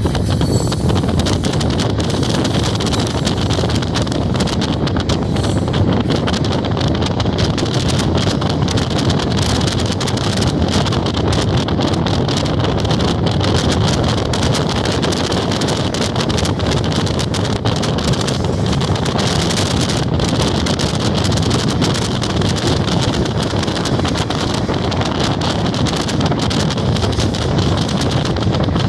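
Freight train of tank cars rolling past, a steady rumble and rattle of steel wheels on rail, with wind buffeting the microphone.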